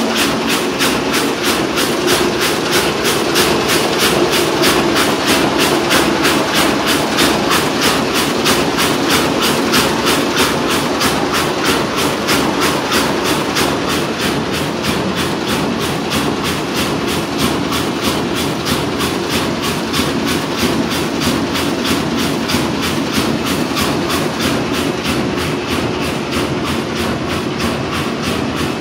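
Van de Wiele VTR33 carpet weaving loom running at speed: a loud, steady mechanical clatter, with sharp even beats of the weaving cycle about three times a second.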